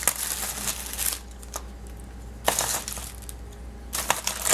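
Crinkling plastic packaging and small plastic collectible figures clicking together, in irregular bursts, as hands rummage through a lot of Heroclix miniatures.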